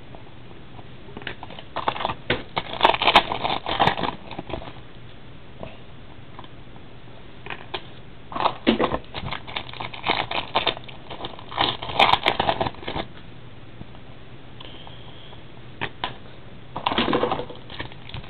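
Trading cards and their packaging handled at close range: spells of crinkling and rustling with clicks, three times, as 2008 Donruss Gridiron Gear cards are opened and sorted.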